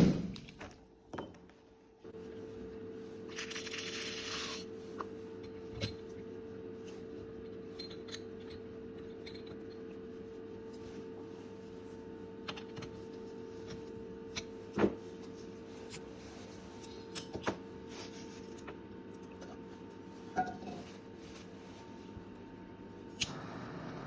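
Popcorn machine running with soybeans inside: a steady hum from about two seconds in, with scattered metallic clicks and clinks over it.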